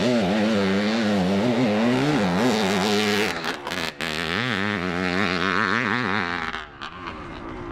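1971 Suzuki TM400 Cyclone's single-cylinder two-stroke engine revving up and down over and over as the bike is ridden hard around a motocross track, with a few sharp knocks about halfway. The engine sound drops away about a second before the end.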